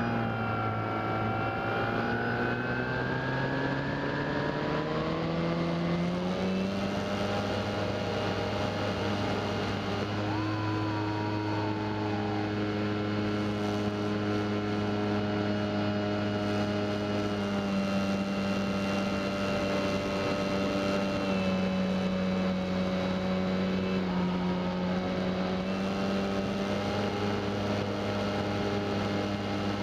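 Brushless electric motor (HeadsUpRC 4248-800) and 13x6.5 APC propeller of an RC scale plane, heard close up from on board in flight. It runs as a steady whine over a propeller drone. The pitch dips near the start, climbs over the next few seconds as the throttle is opened, then holds steady, easing slightly about two-thirds of the way through.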